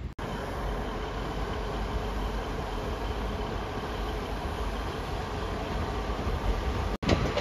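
Northern diesel multiple unit idling at a station platform: a steady engine drone with a faint steady whine over it. It cuts off abruptly near the end.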